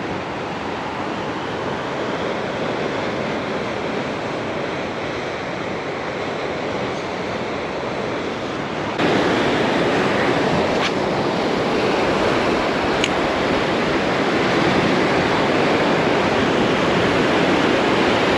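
Rough sea breaking on a rocky shore: a steady rushing of surf that gets louder about nine seconds in.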